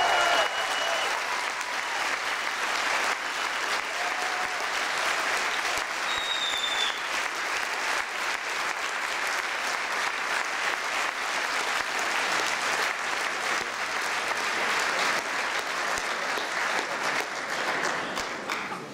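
Large audience applauding steadily, the clapping dying down near the end.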